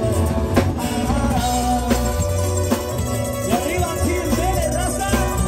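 Live band playing: a singer over acoustic guitar, electric bass and a drum kit, with a steady beat.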